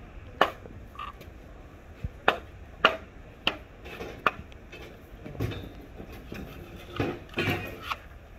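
A string of sharp wooden knocks and cracks, about nine, unevenly spaced, with a longer cracking stretch near the end: bamboo being struck and split with a traditional bamboo-splitting tool.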